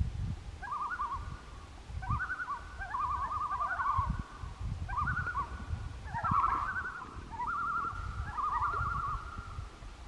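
Several common loons giving overlapping tremolo calls: rapid, quavering, laughing cries repeated throughout at slightly different pitches. The tremolo is the loon's agitated call, given during territorial displays such as the penguin dance.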